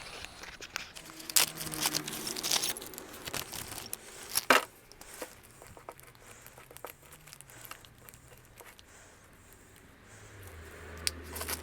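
Hand tools being handled and rummaged through: rustling with a few sharp metal clinks and knocks, the loudest about four and a half seconds in, then quieter, with a low hum coming in near the end.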